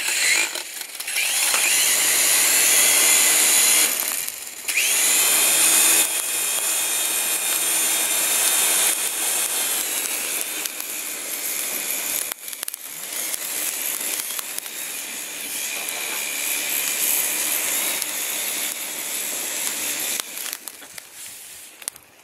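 Mini indoor RC helicopter's small electric motor and rotor whirring with a high whine, held over charcoal briquettes as a blower to fan them. The sound drops briefly about four seconds in, picks up again, and stops about twenty seconds in.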